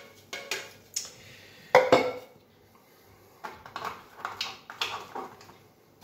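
Plastic blender cups knocked and set down on a kitchen countertop. There are a few light clacks, two louder knocks just under two seconds in, then a run of small clatters near the end.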